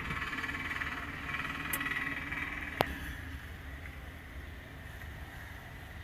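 A single sharp click about three seconds in: the relay on the ESP8266-controlled relay board switching off the test bulb. Under it is faint steady background chatter, fading after the click.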